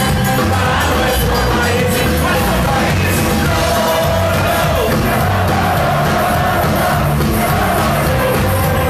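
A live band plays loud amplified music on drums and other instruments, with a singer, heard from within the audience.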